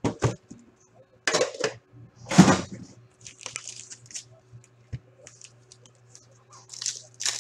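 Hands handling an opened metal Upper Deck hockey card tin and the foil card packs inside it: a series of clanks and scrapes from the tin, the loudest about two and a half seconds in, with crinkling of pack wrappers.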